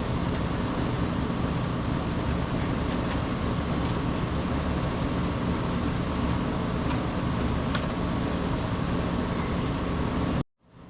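Steady droning background noise with a low hum and a few faint ticks, cut off abruptly just before the end.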